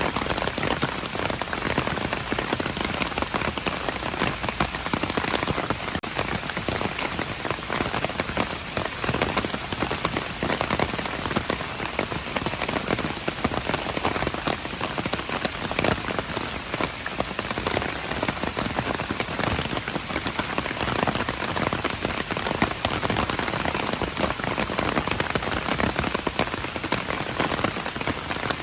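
Steady rain falling and pattering on hard surfaces, with many fine individual drop ticks.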